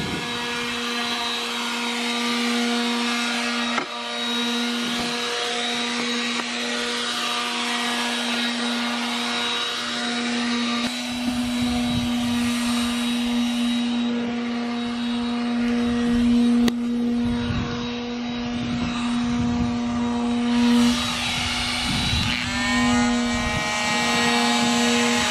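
Handheld electric sander running steadily on a boat's cap rail during fairing work, a constant motor hum with a rough sanding hiss over it that grows and fades as the pad works the surface.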